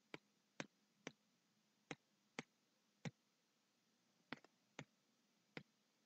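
Computer mouse clicking about ten times, sharp separate clicks half a second to a second apart, while a web page is scrolled, against near silence.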